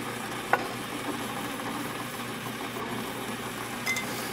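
Atlas metal lathe driven by its 1/3 hp electric motor, running steadily, with a sharp click about half a second in and a brief tick near the end.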